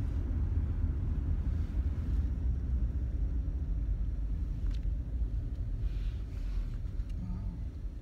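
Steady low rumble of a car driving on the highway, engine and road noise heard from inside the cabin.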